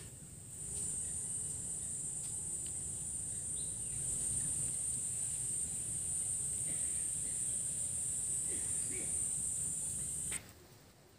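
Steady, high-pitched insect trilling that starts just under a second in and cuts off abruptly near the end.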